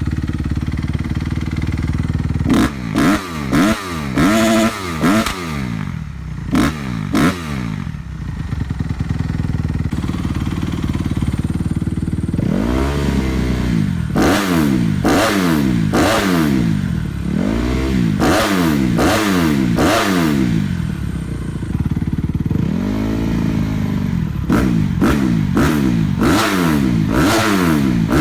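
2015 Honda CRF250R's single-cylinder four-stroke engine through a full FMF 4.1 dual exhaust system, idling and being revved in repeated throttle blips. A quick run of short sharp blips about two seconds in gives way to idle, then to a longer series of revs that rise and fall, with a short idle before a final run of blips.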